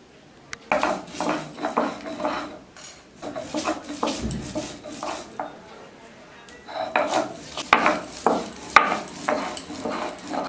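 Metal pots, dishes and utensils clattering as they are handled, in a series of knocks and scrapes with a short lull about six seconds in.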